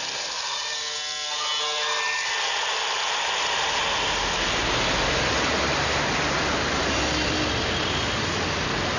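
Music fades out in the first couple of seconds, giving way to a loud, steady rushing noise with a low hum underneath.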